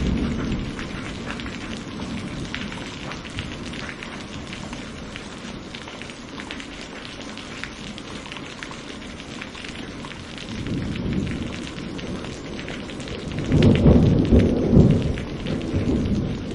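Steady heavy rain with a thunderstorm: a roll of thunder fades in the first couple of seconds, a low rumble swells about eleven seconds in, and a louder rumbling peal of thunder comes near the end.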